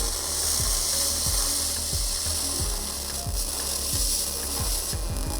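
MIG spool gun welding aluminum: the arc hisses and crackles steadily with irregular pops, the welder turned up hot.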